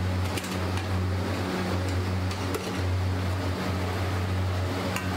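A metal spatula scraping and tapping now and then on a large flat iron griddle (tawa) as chopped egg is turned, over a steady low hum and rushing noise.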